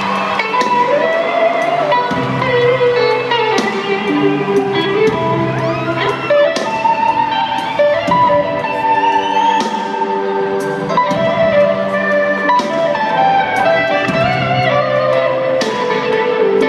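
Live band playing an instrumental passage through the venue's sound system, led by guitar with held and bending notes over drums keeping a steady beat, heard from within the audience.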